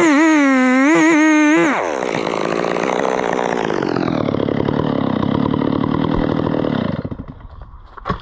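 Chainsaw revving high and wavering for about two seconds, then running lower and rougher until it dies away about seven seconds in. A single sharp knock comes near the end.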